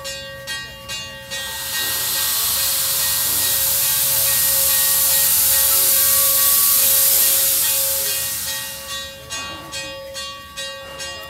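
Steam locomotive venting steam: a loud hiss builds about two seconds in and fades out after about eight seconds. Before and after it there is a quick rhythmic pulsing, about two to three beats a second, over steady ringing tones.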